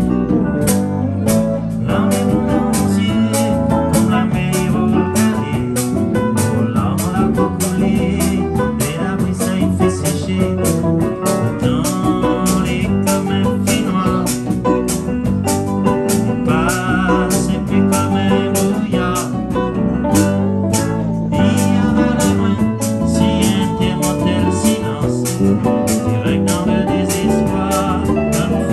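Live band playing a song with a steady beat: electric bass, guitars, keyboard and hand drums, with a man singing at times.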